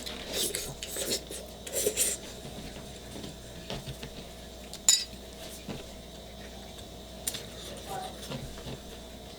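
Eating utensils knocking and scraping against dishes: a few short scrapes in the first two seconds, then a sharp clink about five seconds in and a few fainter taps after it.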